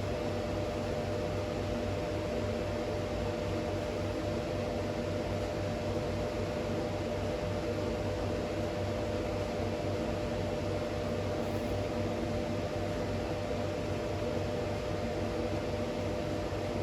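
Steady workshop machine hum with a constant whine, running evenly without change.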